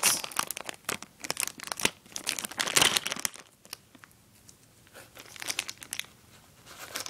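Packaging of new Beyblade spinning-top packs crinkling and crackling as hands handle it and work at opening it, in rapid irregular crackles that ease off for a moment about halfway through.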